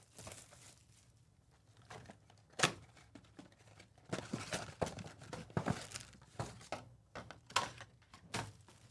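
A Panini Select basketball mega box being opened by hand, with its foil trading-card packs crinkling as they are pulled out and handled. The sound is a run of irregular sharp crackles and taps.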